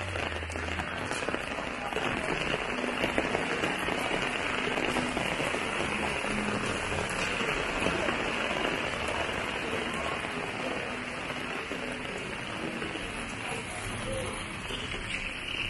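Heavy rain pouring steadily onto surfaces.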